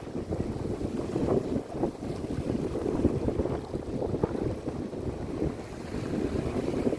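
Wind buffeting the microphone over the rush of sea water, as from a boat under way; the noise sits low and rises and falls in gusts.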